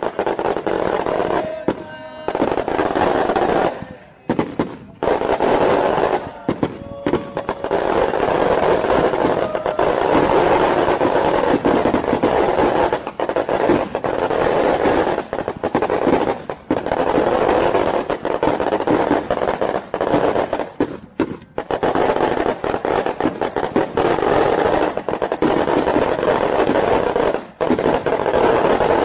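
A long string of firecrackers going off in a dense, rapid crackle, broken by a few brief pauses.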